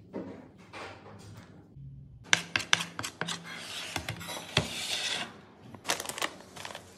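Metal spoon scraping and tapping against a ceramic plate while mixing flour, chilli powder and salt, with sharp clicks of the spoon on the plate among the scratchy stirring; near the end, a plastic zip-lock bag is pulled open.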